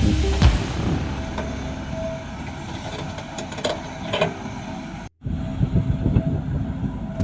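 Heavy diesel machinery running with a steady low rumble, and a few sharp metallic clanks near the middle. The sound cuts out for an instant about five seconds in.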